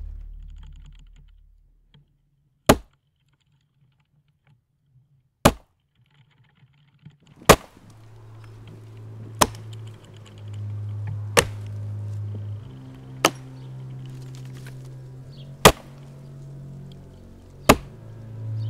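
Axe chopping into a tree trunk: eight sharp strikes, evenly about two seconds apart. A low, sustained musical score comes in under them about eight seconds in.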